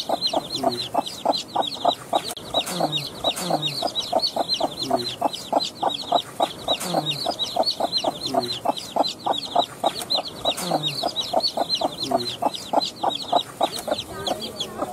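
Newly hatched desi chicks peeping rapidly and without pause, with low clucking about once a second.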